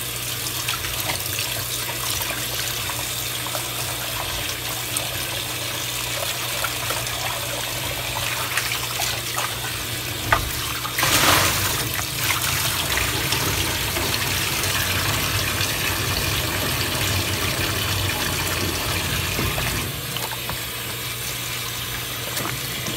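Kitchen faucet running into a plastic tub of water in a steel sink, splashing as a pork ham is rubbed and rinsed by gloved hands. There is a louder burst of splashing about eleven seconds in.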